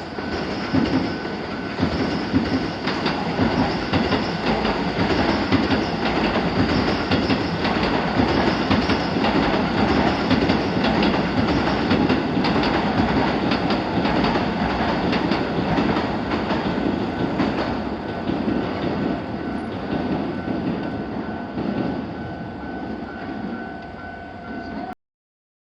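A train running through a railway level crossing, its wheels clacking over the rail joints, with a steady high ringing tone running under it. The sound cuts off abruptly near the end.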